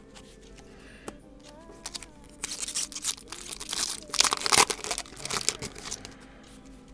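A 2010 Topps baseball card pack's wrapper being torn open and crinkled by hand: a run of rustling crinkles for about three and a half seconds, loudest a little past the middle.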